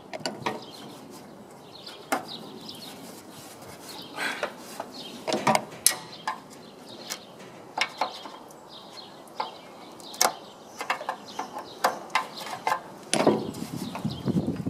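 Scattered clicks and knocks, with rubbing near the end, as hands work a rubber radiator hose and its clamp loose on a tractor's radiator outlet pipe.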